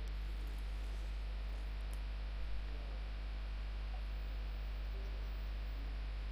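Steady low mains hum with a faint hiss, and a few faint small handling sounds, the first about two and a half seconds in.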